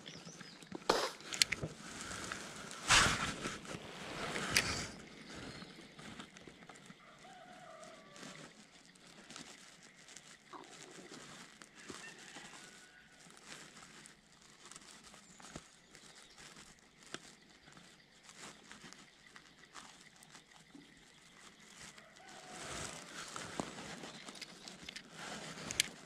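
Several sharp bumps and rustles of hands and clothing close to the microphone in the first five seconds. Then a quiet outdoor background with faint scattered ticks, and rustling rises again near the end.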